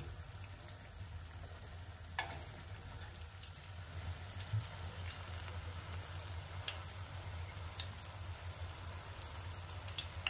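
Small batter balls deep-frying in oil in a stainless steel pan: a faint, steady sizzle with scattered small pops and crackles. There is one sharp click about two seconds in, and a steady low hum underneath.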